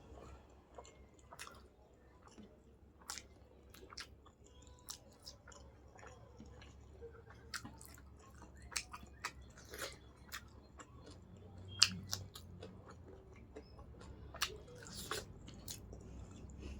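Close-up eating sounds: a person chewing and biting food, with irregular wet mouth clicks and small crunches, the loudest about twelve seconds in.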